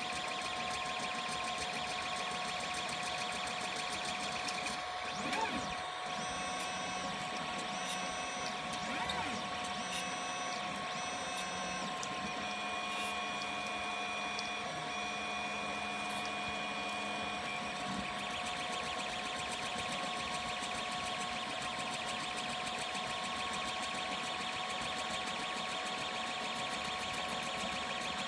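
3D printer running: a steady whine from its motors and fans, with short pitched tones that step up and down as the stepper motors move the print head, busiest in the first half.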